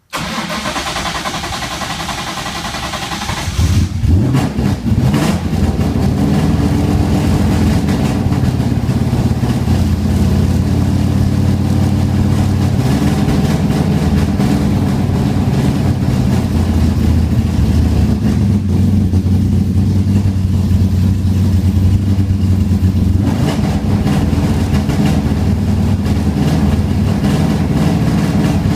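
An engine running, with a steady low hum whose pitch shifts a few times. A higher, thinner sound fills the first few seconds, and the engine sound grows louder from about four seconds in.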